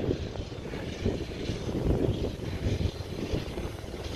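Wind buffeting the camera's microphone: an irregular low rumble.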